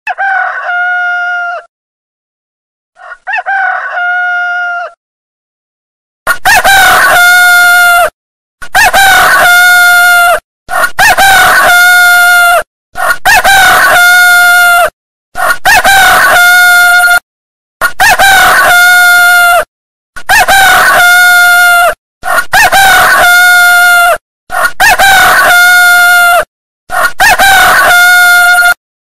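A rooster crowing over and over: two quieter crows, then about ten louder crows in quick succession, each about two seconds long with brief silences between.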